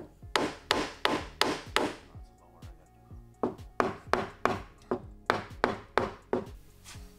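Hammer striking the crumpled sheet-steel inner wheel-well panel of a wrecked 2016 Porsche Cayman, knocking out damage during frame straightening. Steady blows about two or three a second: a run of about five, a pause of over a second, then about nine more.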